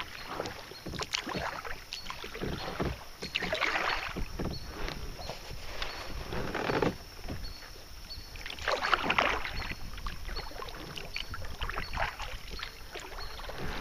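Kayak paddle strokes in river water: the blade swishes and splashes in every two to three seconds.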